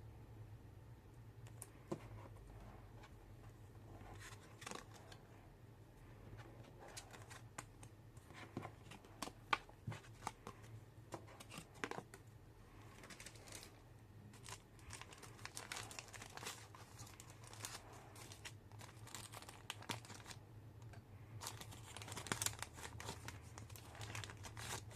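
Plastic and paper packaging crinkling and tearing, with scattered light clicks and taps as items are handled and unwrapped. It is quiet throughout, growing busier in the second half.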